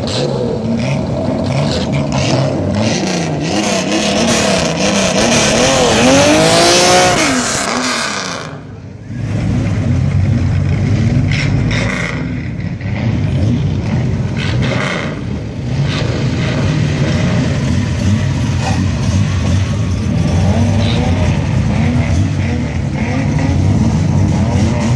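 Modified classic Nissan Skylines' engines revving through loud modified exhausts, the throttle blipped up and down again and again as the cars drive off. About eight seconds in there is a brief lull, then another car's exhaust runs loud and low with more revs.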